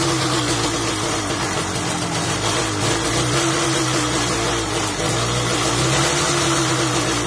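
Riga-13 moped's 50 cc two-stroke engine running steadily after a pedal start, its pitch rising and falling slightly. It runs cleanly now that the ignition breaker points have been reset to the correct small gap, after loosened point screws made it sneeze.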